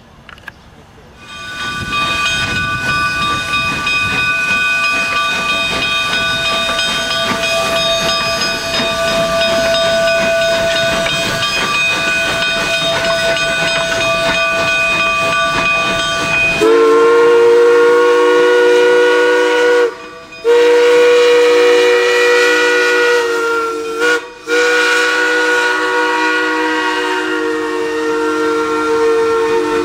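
Narrow-gauge steam locomotive blowing off steam: a loud hiss with thin high whistling tones for about fifteen seconds. Then its steam whistle sounds a long chord of several notes, broken by two short gaps.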